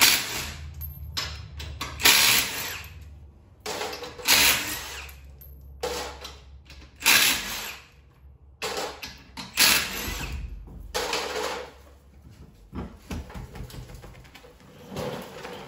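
Impact wrench spinning the lug nuts off a car's rear wheels, in a run of short bursts about a second long, roughly one every one to two seconds.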